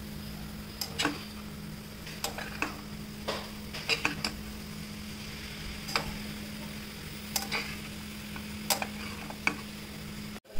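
A spoon or spatula stirring food in a pan, with irregular clinks and knocks against the pan's side.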